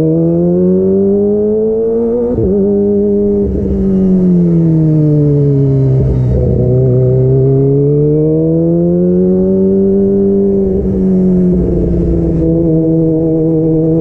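Kawasaki ZX-25R's 249 cc inline-four through a DX Generation Pro Race aftermarket exhaust with the db killer removed, ridden at mid revs. The engine note climbs, drops sharply at a quick gear change about two seconds in, then slowly sinks and climbs again with the throttle before holding steady near the end.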